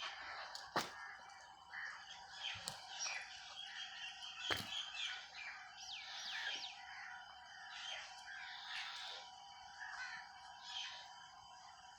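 Small birds chirping and twittering over and over, with a few quick sweeping whistles about six seconds in. A faint steady tone runs underneath, and three sharp clicks come in the first five seconds.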